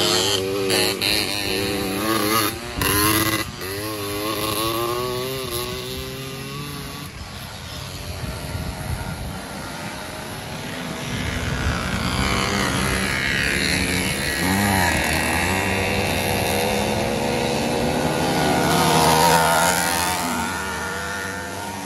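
Small two-stroke engines of racing motorized bicycles running and revving, their pitch wavering up and down. The engine sound is loudest near the end.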